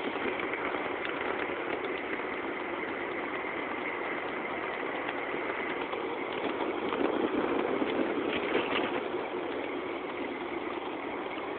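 Steady running noise of a small vehicle moving over grass and a dirt path, with a faint high whine through the first half.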